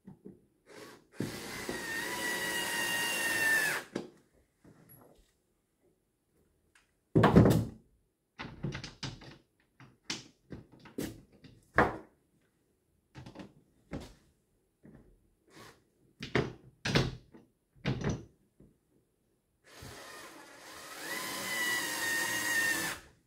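Cordless drill-driver running twice, about three seconds each time, driving self-tapping screws into a plastic mounting plate; the second run grows louder toward its end. In between come clicks and knocks of the tool and parts being handled, the loudest a single thump about seven seconds in.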